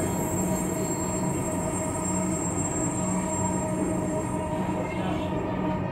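Dhaka Metro Rail train running between stations, heard from inside the carriage: a steady rolling noise with a steady hum.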